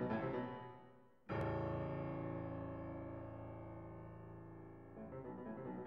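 Background piano music. A phrase dies away, then a single sustained chord is struck about a second in and slowly decays, and quicker notes resume near the end.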